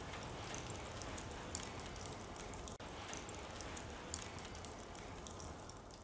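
Faint fire crackling: a low steady hiss with scattered small crackles, fading out near the end.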